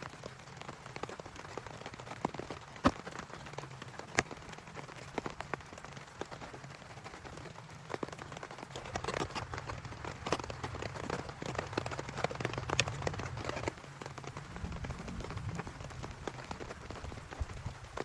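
Rain falling, with many separate drops striking a nearby surface as sharp taps over a steady wash. It grows heavier for several seconds from about halfway through.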